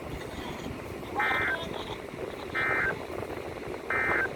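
Three short EAS/SAME end-of-message data bursts from a NOAA Weather Radio broadcast, each a buzzy digital chirp about a third of a second long, about 1.3 seconds apart, over steady radio hiss. They mark the end of the alert message.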